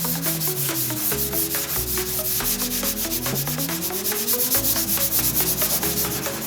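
Rapid, rhythmic abrasive rubbing like sanding on a car panel, with gliding tones and stepping low notes of background music underneath.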